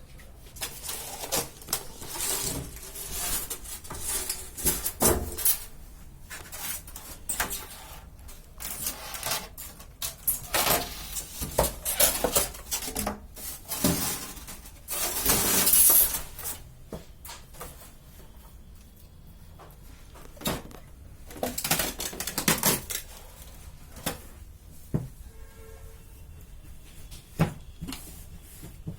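Plastic packaging film being pulled off a new refrigerator: irregular crinkling and ripping, with scattered knocks and rattles.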